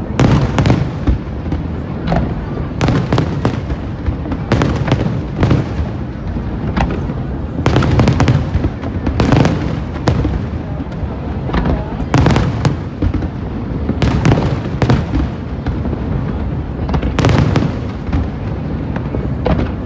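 Aerial fireworks bursting: a loud, irregular series of bangs, roughly one or two a second, over a continuous low rumble of overlapping explosions.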